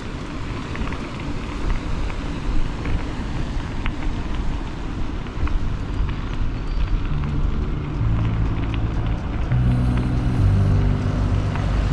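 Steady wind rumble and rolling noise of a moving bicycle ride, with a few faint clicks; background music with a stepping bass line fades in about seven seconds in.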